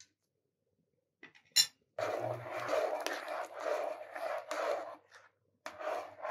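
Metal spoon stirring a thick milky mixture in a granite-coated pot, scraping against the pot in a steady rhythm. A single sharp click comes about a second and a half in, and the stirring pauses briefly near five seconds before starting again.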